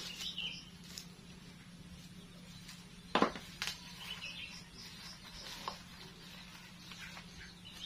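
Plastic wrapping of corn-rice packets being handled and crinkled as they are opened over a bowl, with one sharp crackle about three seconds in and a smaller one just after. Faint bird chirps and a low steady hum sit behind it.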